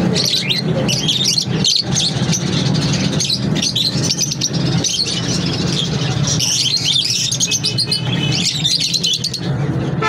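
A cage full of peach-faced lovebirds chirping and chattering: many short, high calls overlapping without pause, over a steady low hum.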